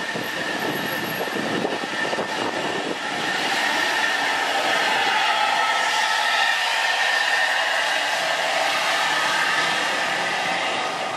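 Mercedes-Benz coach bus's diesel engine pulling round a steep hairpin bend, growing louder from about four seconds in as it passes close by, over a steady hiss of heavy rain.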